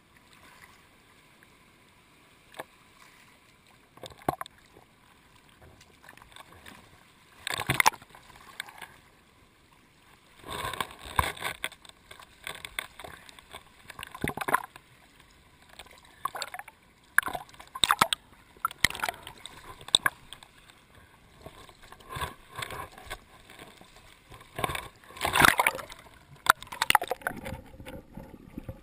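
Seawater splashing and sloshing against a waterproof-housed action camera bobbing at the surface, in irregular bursts with quieter gaps between.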